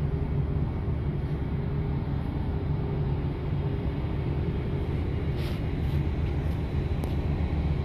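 Steady low rumble of a ship's machinery, with a faint hum in it and a couple of faint ticks about five and seven seconds in.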